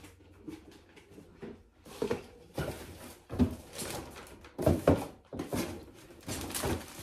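Rustling and light knocks of wrapped gifts and packages being handled while packing a suitcase, in irregular short bursts.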